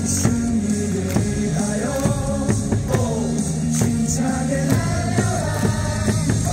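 Baseball crowd singing a batter's cheer song in unison over amplified music with a steady beat.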